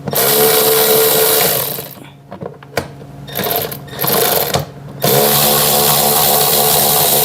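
Cordless drill/driver motor running as it backs out 7 mm screws from the bottom of a car door panel. It runs steadily for about two seconds, gives two short blips, then runs steadily again for the last couple of seconds.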